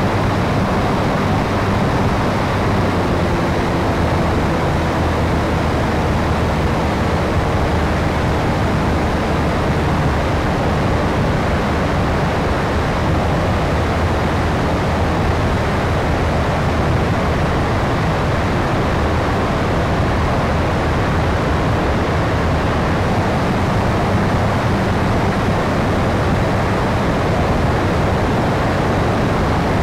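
Radio-controlled P-51 Mustang model in flight, heard from its onboard microphone as a steady, loud rush of wind and propeller noise, with a faint motor tone under it.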